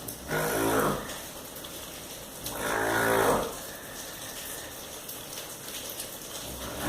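Loud, deep snoring: long snores about a second in, a couple of seconds later, and again near the end, over a steady hiss.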